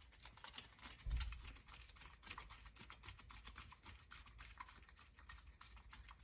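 Faint irregular clicks and ticks of small metal carburetor parts and a screwdriver as the main jet is threaded back into a snowblower carburetor, with one soft low thump about a second in.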